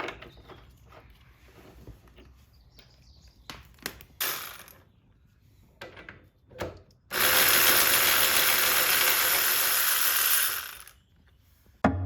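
Scattered tool clicks and clunks, then a ratcheting tool run steadily for nearly four seconds as subframe bolts are driven home.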